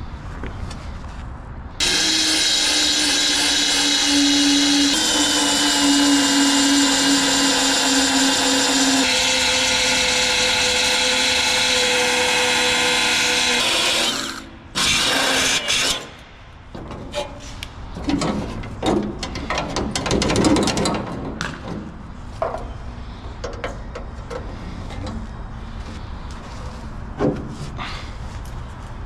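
A power drill running steadily for about twelve seconds, its pitch shifting twice, then a second short run. After it come scattered knocks and taps.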